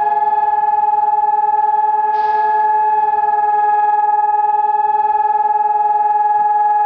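Civil defence siren holding one steady, unwavering tone made of several pitches at once: the memorial siren for Holocaust Remembrance Day. A brief hiss cuts across it about two seconds in.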